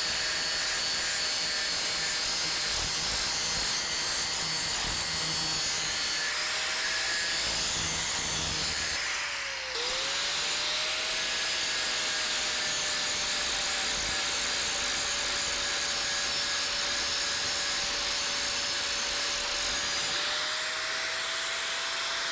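DeWalt angle grinder with a grinding wheel running against steel plate, cleaning the plate's face and bevel, with a steady motor whine under the grinding noise. About halfway through the whine dips briefly and climbs back up, and near the end it rises a little in pitch.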